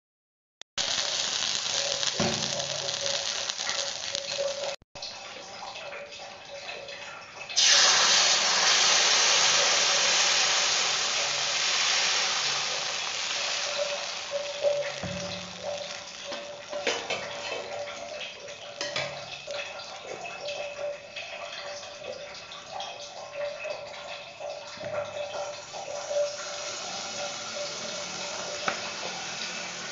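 Rice pancake batter sizzling in a hot greased karai. A loud hiss sets in suddenly about a quarter of the way in and slowly dies down to a steady hiss. A few soft knocks of utensils on the pan come through.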